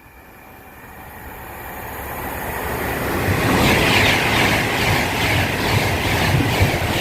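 A train approaching at speed, its rush of noise building steadily for about three seconds, then passing close by loudly with a regular rhythm of wheels and bogies going past.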